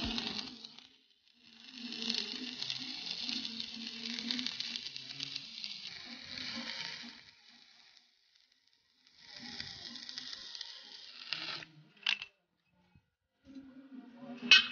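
Stick-welding arc crackling and sizzling as an electrode laid along the seam of a steel square tube burns down on its own. It runs in two long stretches with a pause between them, followed by a single sharp click.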